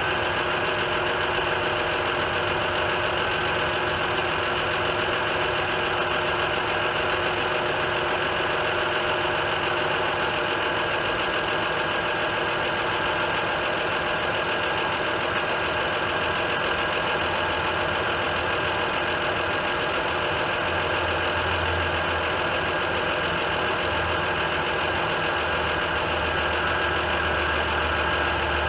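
2003 Audi A4's 3.0-litre V6 idling steadily on its first run after a broken timing belt and cylinder head repair, with a low drone growing stronger in the second half.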